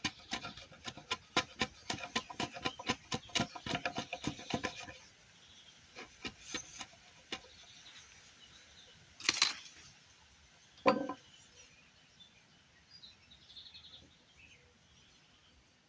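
Hand-tool work on timber: a quick, even run of strikes or strokes with a ringing tone that stops about five seconds in, followed by a scratchy burst and then one sharp ringing knock, with faint birdsong.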